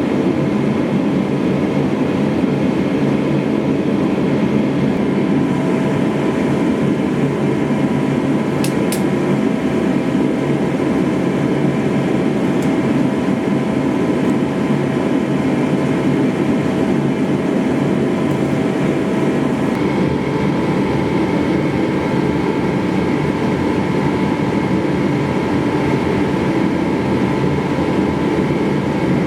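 Power grinder running steadily, a blade being ground on it, with a few steady tones in the noise that change about two-thirds of the way through.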